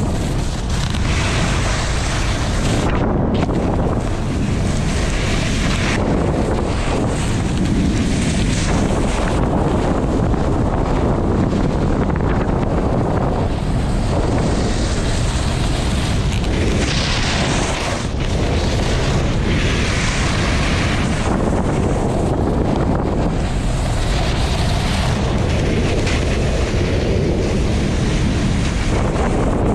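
Wind rushing over an action camera's microphone on a moving snowboarder, a loud steady rumble, with the snowboard's edge scraping across packed snow in swells of hiss as it carves from turn to turn.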